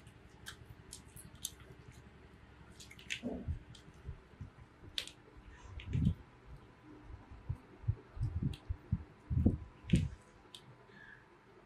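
Close-up sounds of eating by hand and chopsticks: lettuce leaves crinkling and wooden chopsticks clicking as grilled fish is wrapped in lettuce. Scattered sharp clicks run through it, with several soft low thumps, the loudest in the middle and near the end.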